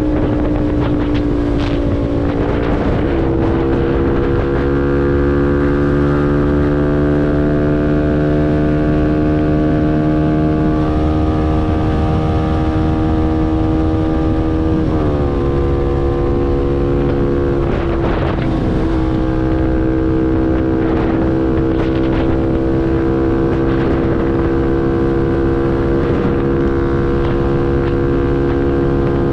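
CFMoto NK250 motorcycle engine, a single-cylinder, running through a full Akrapovič exhaust while riding: the pitch climbs slowly for about fifteen seconds, drops sharply at a gear change, then holds fairly steady.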